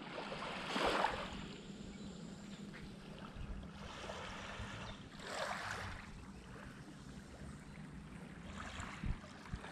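Small waves washing up on a sandy beach, with two louder washes, about a second in and again near the middle. A low rumble and a faint steady hum run underneath.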